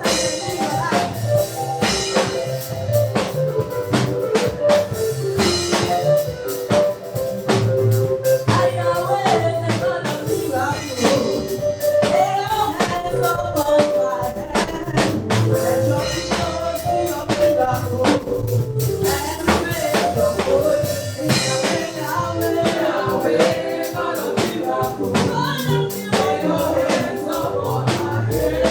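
Live gospel praise music: a choir singing over a drum kit and band, with a steady beat.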